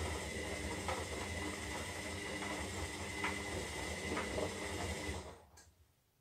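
Zanussi Lindo 300 washing machine tumbling its drum in the wash: a steady motor hum and whine with a light knock now and then, until the motor winds down and stops about five seconds in, followed by a single click.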